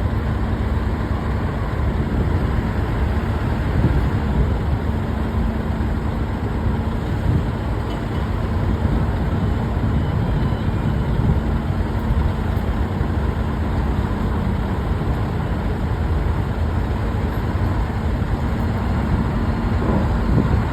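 Steady low rumble of heavy engines running, with a constant droning hum over it that dies away near the end.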